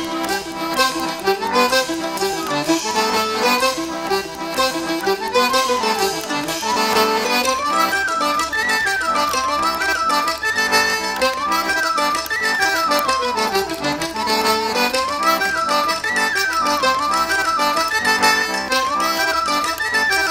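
Background music: an accordion playing a traditional-style tune, its melody running quickly up and down over sustained lower notes.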